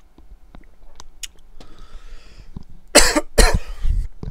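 A man coughing twice in quick succession about three seconds in, after a breath in.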